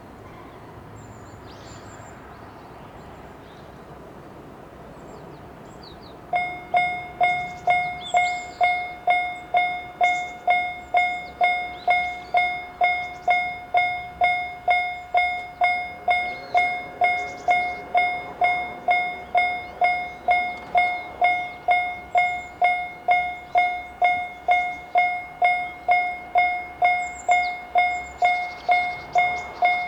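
Japanese railway level-crossing alarm, the JR standard single-tone electronic bell, starts about six seconds in and dings steadily at about one and a half strikes a second. Before it there is only a quiet outdoor background.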